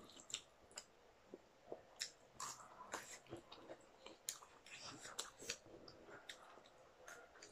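Close-up eating sounds: crisp raw cucumber slices being bitten and chewed, with noodles chewed as well. Short, wet crunches and mouth clicks come at irregular intervals throughout.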